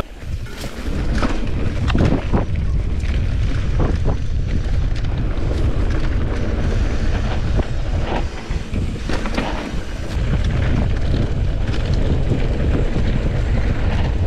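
Wind buffeting an action camera's microphone as a full-suspension Santa Cruz Nomad mountain bike rolls fast down a dirt trail, with a steady low rumble and frequent knocks and rattles from the bike over bumps.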